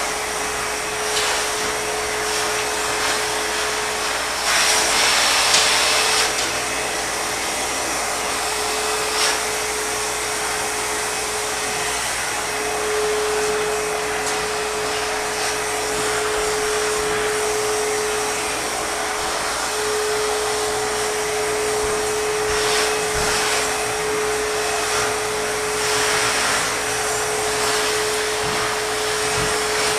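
ProTeam backpack vacuum cleaner running steadily: a constant motor whine over a rush of air. The air noise swells louder for a moment about five seconds in, and again a couple of times later on.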